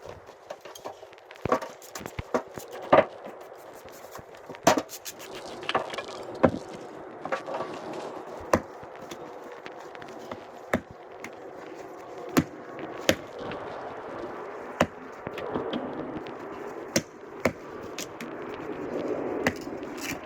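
Firewood logs knocking and clattering as they are handled, with sharp wooden knocks at irregular intervals over a steady rustling scrape.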